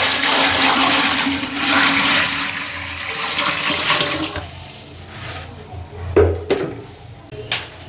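Toilet flushing: a loud rush of water for about four seconds that then dies away, followed by a few sharp knocks near the end.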